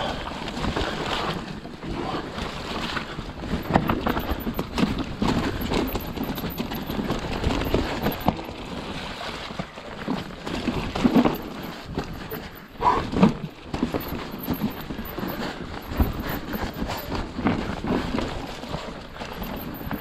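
Haibike XDURO Nduro electric full-suspension mountain bike clattering over rough, rocky trail ground. Irregular knocks and rattles come from the tyres, chain and suspension, with a few harder hits about 4, 11 and 13 seconds in.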